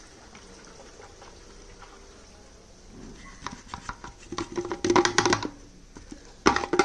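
Thin plastic water bottle crackling and crinkling as it is gripped and squeezed, upended in a motorcycle's fuel filler while the last of the petrol drains from it. The crackling starts about three seconds in, grows loudest after about four and a half seconds, and comes again in a short loud bout near the end.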